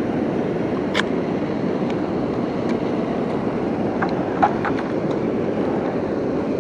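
Steady rush of river water pouring over a low-head dam and churning below it, with a few short clicks about a second in and again around four seconds in.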